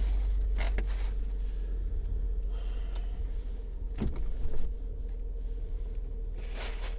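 Steady low rumble with a faint steady hum, broken by a few short clicks and knocks.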